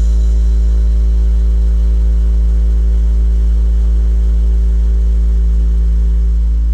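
Bass test tone played through a sound system's bass speakers: one loud, steady, very deep hum with fainter overtones above it.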